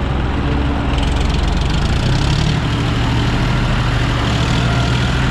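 John Deere 5045 D tractor's three-cylinder diesel engine running steadily, then about two seconds in its note rises and grows heavier as it takes up the pull of a fully loaded trolley in soft mud.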